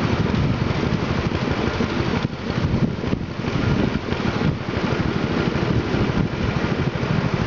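Longtail boat's engine running steadily.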